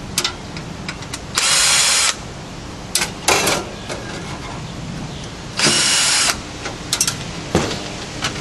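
Cordless drill-driver backing out screws from a sheet-metal computer drive bay: short whirring runs, two of them longer, at about one and a half and five and a half seconds in, with a brief one between. Sharp clicks and metal clanks come between the runs and near the end as the drive cage is worked loose.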